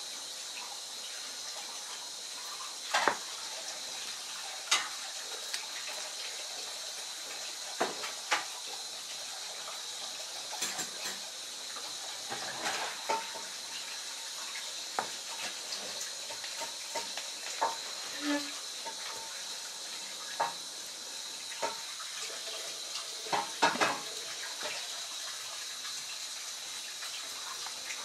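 Shimano Hollowtech II bottom bracket cups and a small metal pick handled by hand: scattered light metal clicks and taps, a dozen or so, over a steady hiss.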